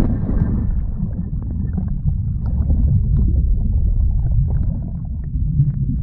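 Underwater noise picked up by a submerged camera after plunging into a lake: a muffled low rumble of churning water with faint bubbling clicks.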